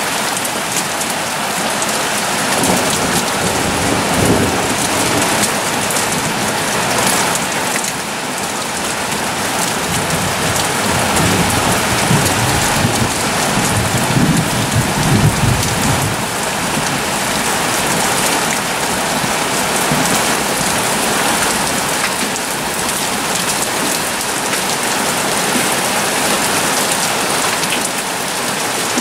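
Heavy rain pouring steadily onto a garden lawn and pond in a thunderstorm, with low rumbles of thunder: a short one about four seconds in and a longer one from about eleven to sixteen seconds in.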